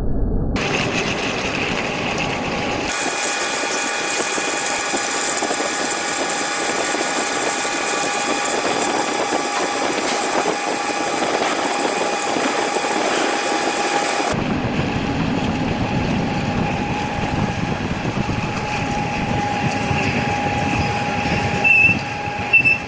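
Machine drilling into metal with a large drill bit, a steady grinding run with several steady whining tones over it. The sound changes abruptly three times: about half a second in, about three seconds in and about fourteen seconds in. Two short louder knocks come near the end.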